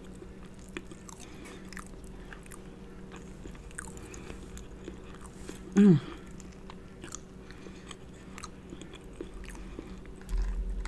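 Close-up eating sounds of a seafood boil: chewing and mouth smacks, with small clicks from fingers picking crab and shrimp apart, over a steady low hum. About six seconds in comes a short, loud vocal "mm" that drops in pitch.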